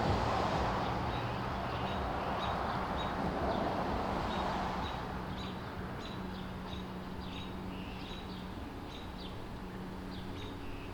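Small birds chirping, many short high chirps a few times a second, over a steady low hum and a rush of background noise that fades over the first half.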